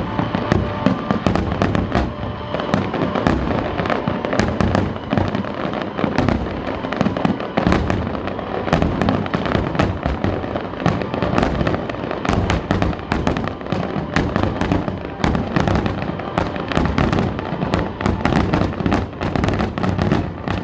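Fireworks finale: a dense, continuous barrage of shells bursting, many overlapping bangs a second with no break.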